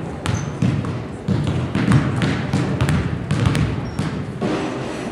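Basketball bounced several times on a gym floor before a free throw, with the murmur of spectators talking in the background.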